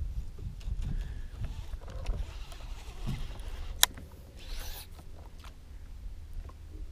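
Low, fluttering rumble of wind on the microphone, with one sharp click about halfway through and a short hiss just after it.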